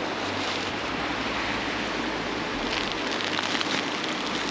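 Steady hiss of freezing rain falling, with a denser spell of fine crackling ticks from a little under three seconds in.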